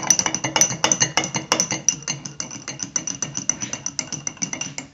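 Metal spoon stirring quickly in a drinking glass of foaming baking-soda-and-vinegar mixture, clinking against the glass about eight times a second with a ringing tone. The clinking gradually fades and stops abruptly.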